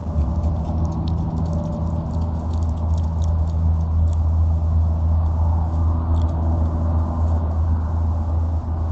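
Trail-camera audio: a steady low hum with scattered light ticks and rustles on top.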